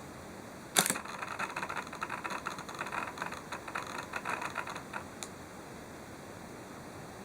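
Nikon AF-S 16-85mm f/3.5-5.6 zoom lens on a D5500 body making an abnormal rattling, crackling noise for about four seconds. It starts with a sharp click, stops about five seconds in, and is followed by one more click. This is the fault noise that the owner hears with the camera powered on, which he finds loudest when zooming and in live view.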